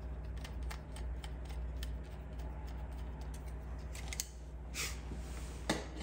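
Small clicks and scrapes of an electrical wire being worked loose from a plastic wall-switch terminal, with a short, louder scrape about five seconds in and a sharper click near the end.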